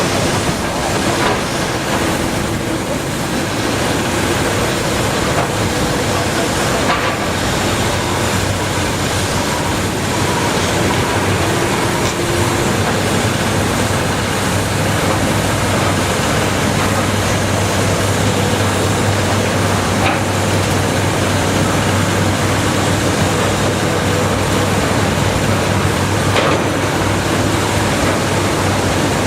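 Cat 320DL hydraulic excavator working in clay, its diesel engine running steadily under load. A low hum grows stronger about a third of the way in, with a few faint knocks.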